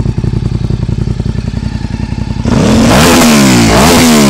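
Liter-class V-twin sport bike on an aftermarket exhaust, idling with an uneven pulsing beat, then revved hard twice from about two and a half seconds in, the pitch climbing and dropping back with each blip.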